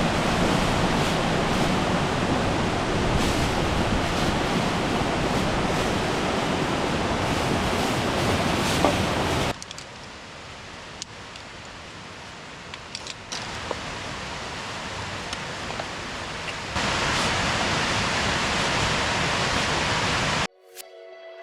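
Steady rush of flowing water, loud at first, dropping to a quieter level about halfway through with a few light clicks, then loud again before cutting off abruptly.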